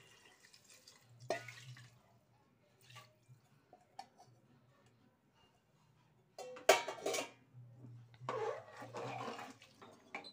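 A metal ladle stirring rice, vegetables and water in an aluminium pressure cooker, scraping and knocking against the pot in a few short bursts, with the loudest clank about two-thirds of the way in.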